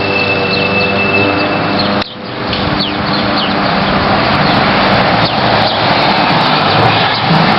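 Road traffic going by: a steady rush of tyre and engine noise, with a vehicle's engine hum fading out about two seconds in.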